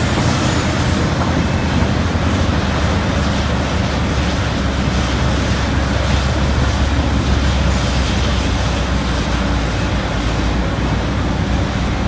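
Liebherr R 976 hydraulic mining excavator's diesel engine running steadily under load: a deep, even drone with a broad mechanical rumble over it.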